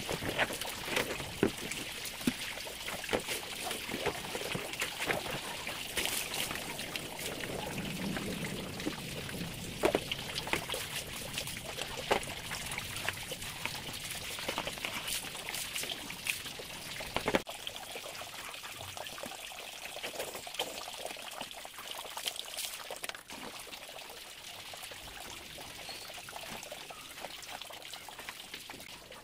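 Water pouring and splashing as plastic basins are scrubbed and rinsed with a dipper, with frequent knocks of plastic on plastic. The sound drops suddenly to quieter sloshing a little past halfway.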